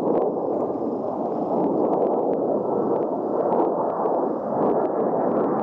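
Steady, muffled rushing noise of an A-10 Thunderbolt II's twin General Electric TF34 turbofan engines as the jet flies past, with faint scattered clicks.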